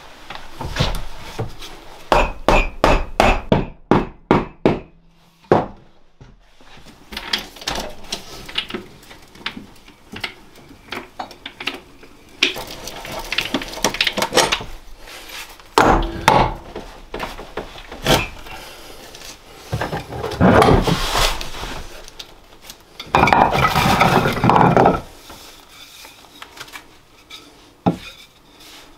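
Hand woodworking: a quick run of about ten hammer blows, roughly three a second, followed by scattered knocks and several longer scraping stretches of wood being worked.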